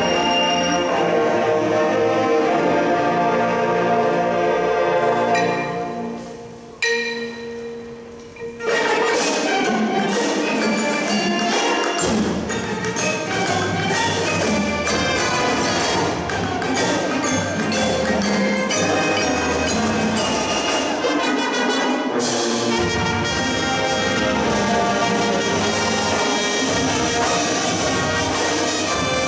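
Marching band playing: sustained brass chords fade into a brief soft passage with a few held mallet-percussion tones about six seconds in, then the full band with drums comes back in loudly a couple of seconds later.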